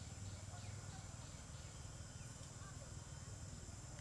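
Faint outdoor ambience: a steady high insect drone over a low hum, with a few faint, brief bird chirps.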